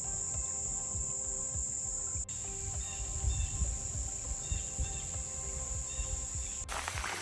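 Steady high-pitched chorus of insects such as crickets or katydids over a low rumble. Near the end it cuts away to the rushing of a brook.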